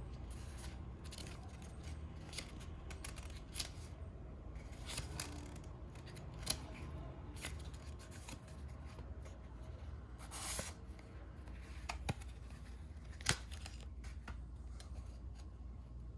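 Watch packaging being handled and opened: a run of short rustling, scraping and tearing sounds of wrapping and box, with a few sharp clicks.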